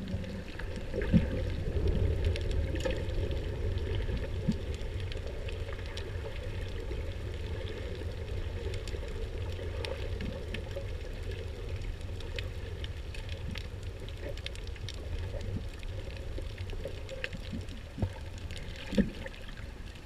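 Underwater ambience picked up through a camera's waterproof housing: a steady low rumble of moving water with scattered faint crackling clicks. A few sharper knocks stand out, the loudest about a second in and two near the end.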